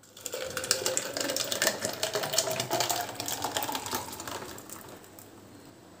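Milky drink poured in a thin stream over ice cubes in a clear plastic tumbler: the ice crackles and clinks quickly while the pouring tone rises in pitch as the tumbler fills. It tails off about four and a half seconds in.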